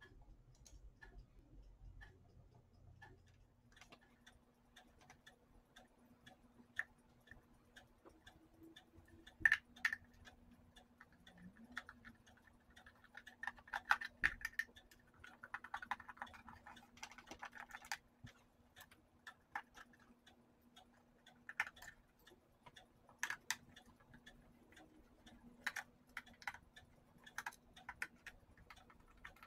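Small screwdriver clicking and scraping in the screws of a plastic electric blanket controller case as they are backed out, with irregular light clicks from handling the plastic housing. A faint steady hum sits underneath.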